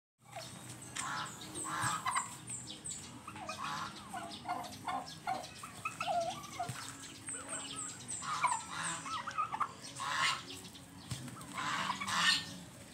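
Domestic turkeys gobbling and calling over and over, with two runs of quick high chirps from another bird. Two harsh, noisy bursts come near the end.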